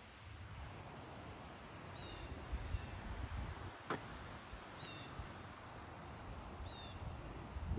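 Quiet outdoor garden ambience: a bird repeats a short falling chirp about every two seconds over a faint steady insect trill, with a low rumble of wind or handling on the microphone.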